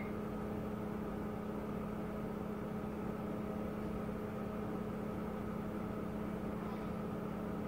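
Steady low machine hum with one strong, unchanging tone, like a running fan or appliance, and no other sound standing out.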